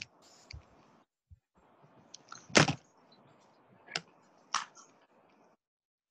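A few sharp clicks and knocks close to the microphone, the loudest about two and a half seconds in, over faint microphone hiss that cuts off near the end.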